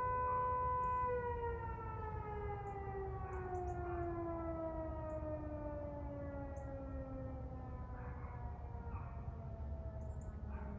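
Eclipse 8 fire siren sounding for an emergency call. It holds a steady tone for about a second, then winds down, its pitch sliding slowly lower.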